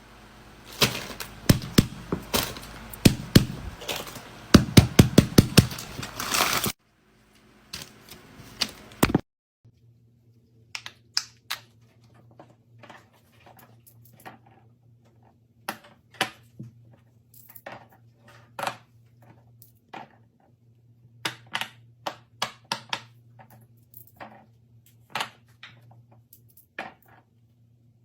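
Fidget toys being pressed and popped by hand: a quick run of sharp clicks and pops for the first several seconds, then, after a couple of abrupt cuts, slower single clicks and pops over a faint steady low hum.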